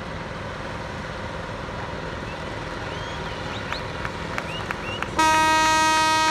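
A steady outdoor din, then about five seconds in a loud horn starts: one long, steady-pitched blast.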